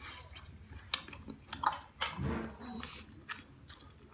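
Chopsticks and spoons clinking against dishes and a stone pot at a dining table: a few scattered clicks, the loudest about two seconds in, followed by a short low murmur.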